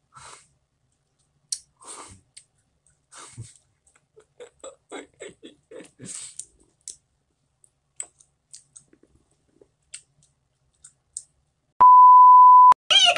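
Faint scattered clicks and soft mouth noises, then near the end a loud, steady electronic beep on one pitch lasting just under a second.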